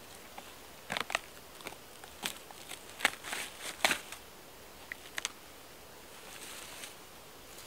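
Rotten birch log being pried apart, its bark and dry punky wood cracking and snapping in an irregular string of sharp cracks over the first five seconds or so.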